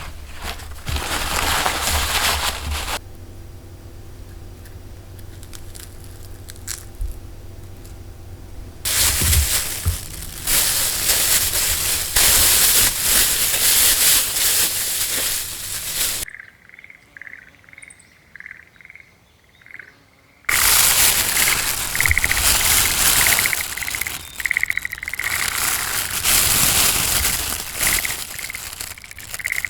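Wood campfire crackling and hissing, changing abruptly several times between louder and quieter stretches, with a bird calling in short repeated high notes in the second half.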